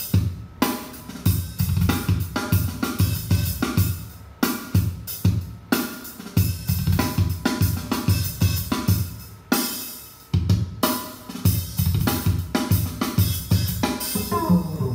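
Drum-driven music with heavy bass, kick, snare, hi-hat and cymbals in a steady beat, played back from a laptop over USB through a Behringer Xenyx QX1222USB mixer acting as the sound card. The beat drops out briefly about ten seconds in.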